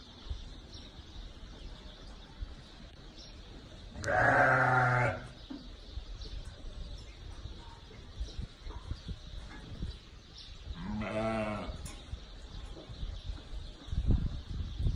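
Sheep bleating twice: a loud call about four seconds in lasting about a second, and a second, quieter, wavering call about eleven seconds in. Some low thumps come near the end.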